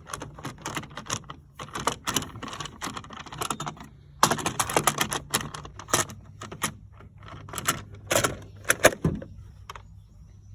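Chainsaw's plastic top cover being worked back on over the throttle: a rapid, irregular run of plastic clicks and knocks as the parts rub and snap into place, busiest in the middle.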